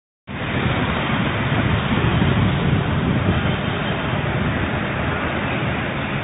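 Road traffic on a rain-wet road: cars and motorbikes passing with engine hum and tyre hiss, a steady din that cuts in a moment in.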